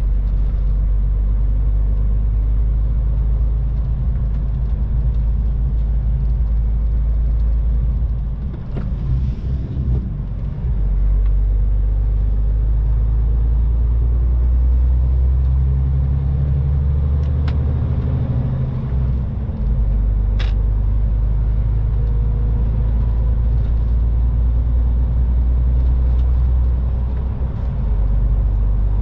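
A MAN TGX 18.510 semi-truck's 12.4-litre straight-six diesel running at motorway speed, heard inside the cab as a steady low drone with road noise. The drone eases off briefly about eight seconds in, again past the middle, and near the end, with a couple of sharp clicks in between.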